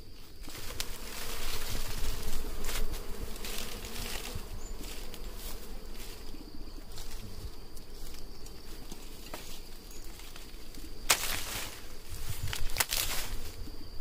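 Wild honeybees buzzing around an open comb hanging on a branch, with leaves and twigs rustling as the branch is handled. Louder crackles of leaves about 11 and 13 seconds in.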